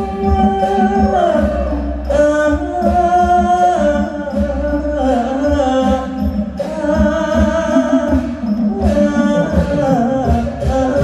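Likay singing: the costumed leading man sings long, held notes with sliding ornaments into a microphone, amplified over band accompaniment with a low, regular drum beat.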